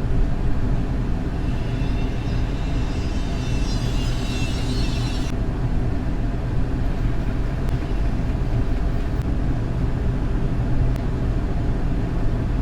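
Midsize excavator's diesel engine running steadily. A faint, wavering high squeal rides over it from about a second in and cuts off suddenly about five seconds in.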